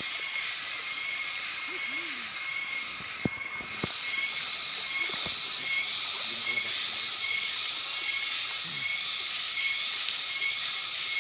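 Steady rushing of a small mountain waterfall and stream. A faint high chirp repeats about twice a second throughout, and there are a couple of light knocks a few seconds in.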